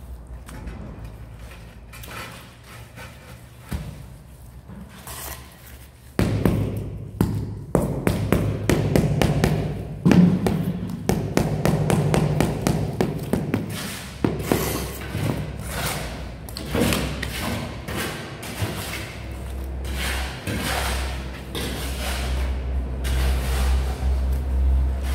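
Steel trowel scraping and patting a bed of wet cement mortar in a run of short strokes, over background music. A low rumble builds in the last few seconds.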